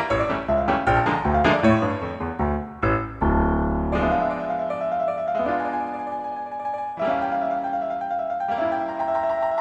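Silent-film-style solo piano music: quick running notes for about the first three seconds, then slower held chords.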